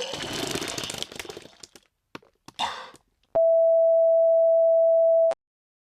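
A noisy, distorted sound dies away over the first second and a half, followed by a few sharp clicks and a short crackle. Then a single steady electronic tone, like a broadcast signal-off beep, sounds for about two seconds and cuts off abruptly.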